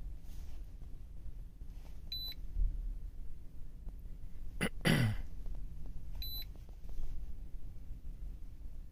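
Two short high-pitched beeps from the Innova 5610 scan tool's keypad as buttons are pressed to step out of a live-data screen back to its menu, about four seconds apart. Between them, a louder brief sound drops sharply in pitch, over a low background rumble.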